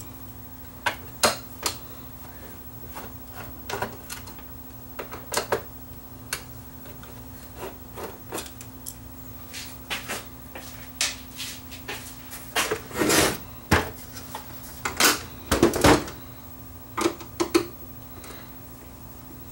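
Sherwood CDC-5030 CD changer's metal chassis and plastic parts being handled on a workbench: scattered clicks and knocks, with two louder clattering bangs about two-thirds of the way through as the unit is turned over and set down upside down. A steady low hum runs underneath.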